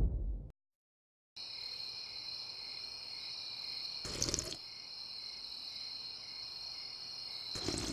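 Steady night chorus of crickets, high and even with a faint regular pulse, starting after a short dead-silent gap. A short noisy sound cuts through about four seconds in, and another near the end.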